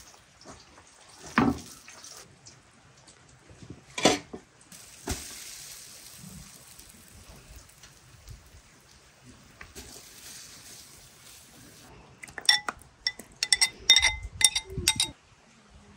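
Pot and utensils knock a few times, then a soft hiss runs through the middle. Near the end a metal spoon clinks sharply and repeatedly against a bowl while yogurt is scooped out onto the rice.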